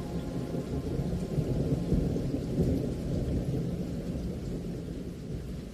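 Low rolling thunder that swells about two seconds in and slowly dies away, over a faint steady hiss of rain.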